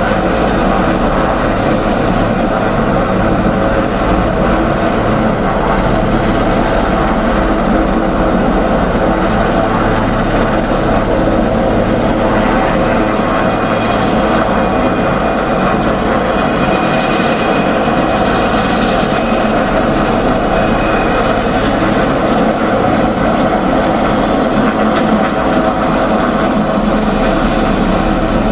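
Helicopter engine and rotor running steadily, lifting HVAC equipment, a continuous drone with a steady hum.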